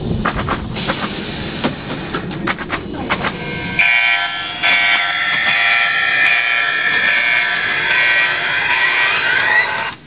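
Electric chair Halloween prop's electronic buzzing sound effect, a harsh alarm-like drone that starts about four seconds in and has a rising whine near the end. Before it there is a low rumble with scattered clicks.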